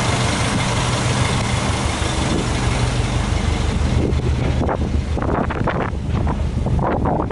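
Subaru Impreza WRX STi Version V's turbocharged 2.0-litre EJ20 flat-four idling steadily. From about four seconds in, wind gusts buffet the microphone over the idle.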